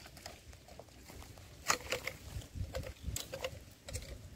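A freshly landed mullet flopping on dry palm fronds and soil: a series of irregular slaps and rustles, the loudest nearly two seconds in.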